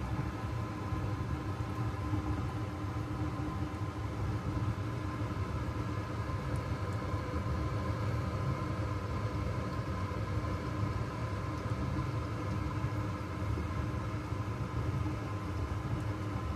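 Steady mechanical hum with a low rumble, holding several even tones without change.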